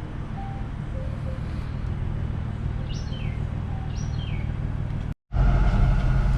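Steady low rumble of a BMW F80 M3 driving, with two short falling chirps partway through. It cuts off about five seconds in and gives way to a steadier, louder hum with a strong low tone.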